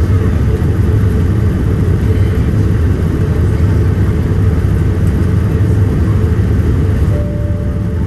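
Steady, loud, low rumble of a vehicle's engine and running noise, unchanging throughout.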